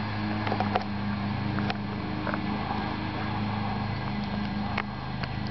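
A steady motor hum with a constant low drone, plus a few faint scattered clicks.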